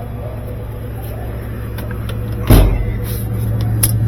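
Steady low mechanical hum, with one loud thump about two and a half seconds in and a small click near the end.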